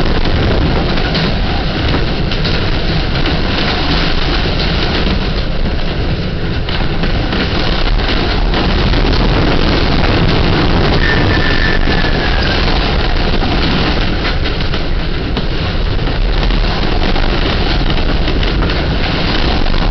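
Hurricane-force wind blowing steadily around a sailboat's hull, heard from inside the cabin, with scattered knocks and rattles and a brief faint whistle about halfway through.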